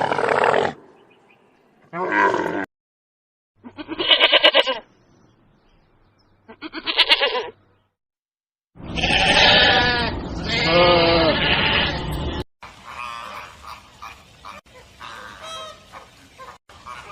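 Bleating livestock: three short, quavering bleats a couple of seconds apart, then two long bleats back to back. Fainter, scattered high chirping calls follow near the end, and the tail of an earlier call dies away in the first second.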